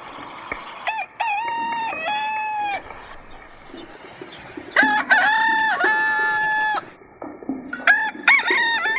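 Rooster crowing three times, each crow a run of long held notes.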